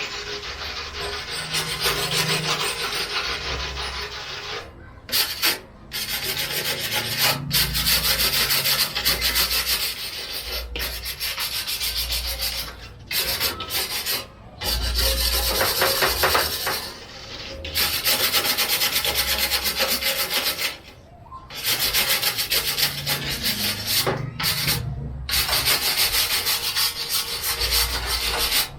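Rust being sanded and scraped off the steel frame of an old computer case: a steady abrasive rubbing that comes in long spells, stopping briefly several times.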